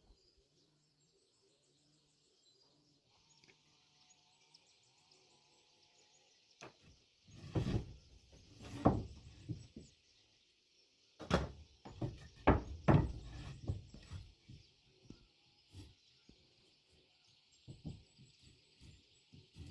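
Two clusters of heavy knocks and thuds, about seven and eleven seconds in, from wooden parts being handled or struck during woodwork. Under them runs a steady high hiss of outdoor background with occasional bird chirps.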